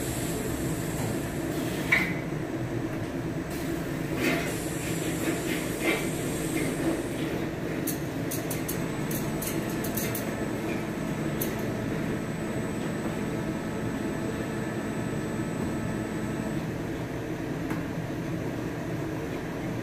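Plastic injection moulding machines running: a steady mechanical hum with scattered sharp clicks and clacks, including a quick run of ticks about eight to ten seconds in. A faint high whine stops about sixteen seconds in.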